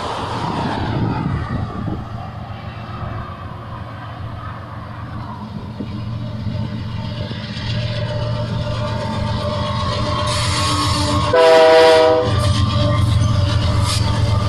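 GE diesel freight locomotives running with a steady low drone that grows louder as the train comes on. About eleven seconds in, the lead locomotive's air horn sounds one blast of about a second, several tones at once, the loudest sound.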